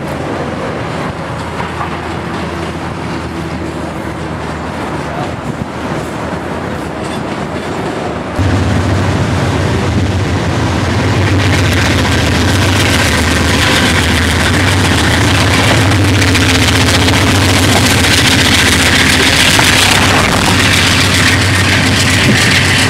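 Double-stack intermodal freight cars rolling past, wheels clicking over the rail joints. About eight seconds in, the sound cuts abruptly to the louder, steady drone of CSX diesel locomotives passing: GE widecab units and an EMD GP40-2, with a rising hiss of wheel and engine noise.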